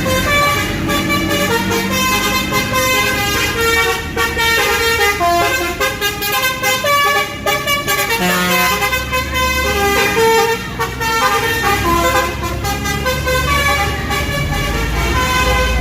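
Bus 'telolet basuri' multi-tone horn playing a melody, its notes changing quickly one after another, with a low rumble swelling near the end.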